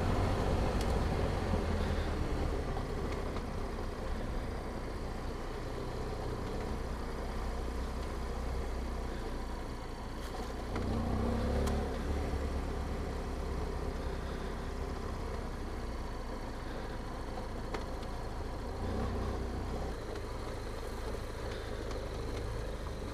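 Adventure motorcycle engine running at low speed on a dirt track, with a steady low rumble and a short rise in revs about eleven seconds in.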